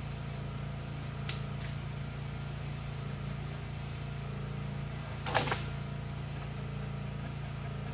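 Dry branches and brush crackling and snapping as they are handled: two light snaps a little over a second in and a louder crackle about five seconds in, over a steady low mechanical hum.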